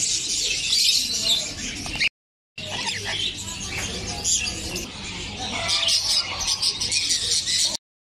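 Many caged pet birds, such as cockatiels, lovebirds and finches, chirping and squawking at once in a dense, continuous chatter. The sound drops out briefly about two seconds in.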